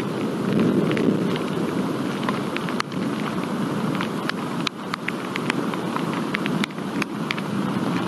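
Rain during a thunderstorm: heavy drops ticking sharply one by one on or near the microphone, over a steady low rumble of thunder that swells about a second in.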